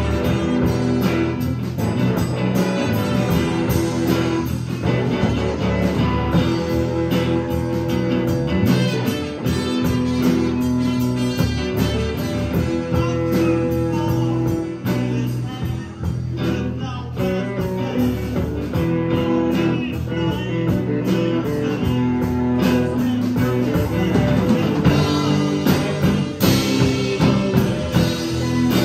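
Live rock band playing: trumpet over electric guitars, bass guitar and a drum kit, with cymbals keeping a steady beat.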